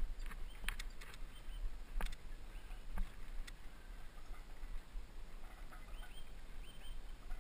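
Mountain bike being ridden over rough trail: irregular knocks and rattles from the bike over bumps, with wind rumbling on the microphone.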